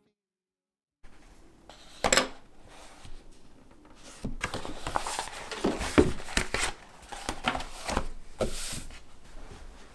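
Handling sounds on a wooden desk: a single knock about two seconds in, then from about four seconds a busy run of taps, knocks and rubbing as a spiral-bound sketchbook is moved and its cover opened.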